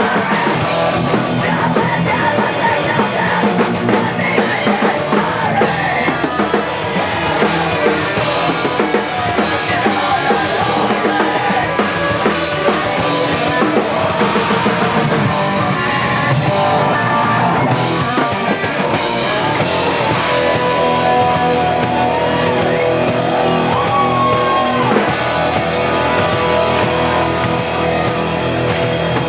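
Rock band playing live at full volume, drum kit and guitar to the fore.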